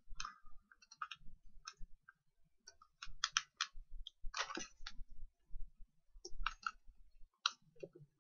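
Quiet, scattered clicks of a computer mouse, singly and in small clusters with short gaps between.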